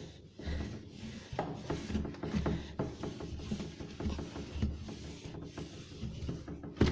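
Cleaning and handling inside a refrigerator: irregular rubbing, clicks and low knocks of plastic fridge parts being wiped and moved, with one sharp knock near the end.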